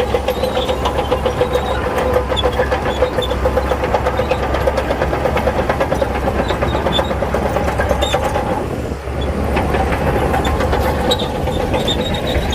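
Heavy earthmoving machine's diesel engine running hard with a fast, even throb. It dips briefly about nine seconds in, then picks up again.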